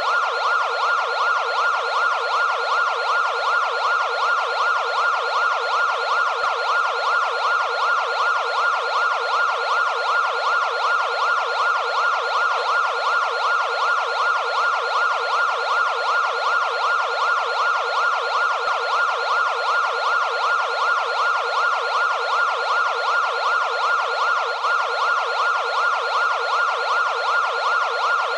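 Electronic emergency-vehicle siren sounding continuously in a fast, evenly repeating up-and-down yelp, starting abruptly.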